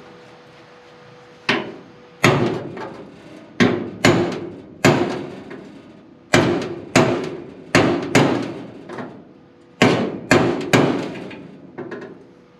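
About a dozen hammer blows on metal, irregularly spaced and in short runs, each ringing briefly, as a stuck old door hinge is knocked loose from a car body.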